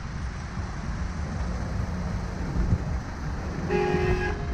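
Steady low rumble of a traffic jam of cars running at a crawl. Near the end a car horn honks once, a short single toot of under a second.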